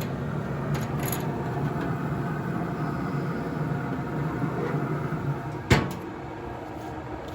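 Camp Chef Woodwind SG pellet grill running with a steady hum. About six seconds in there is one sharp bang, and after it the running sound is quieter.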